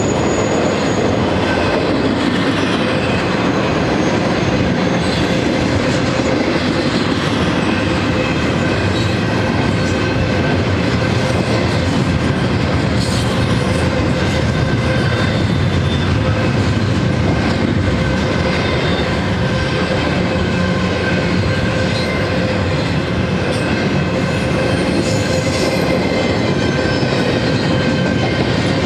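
Double-stack intermodal freight train's well cars rolling past close by: a steady, loud rumble and clatter of steel wheels on the rail, with a thin steady squeal from the wheels riding over it.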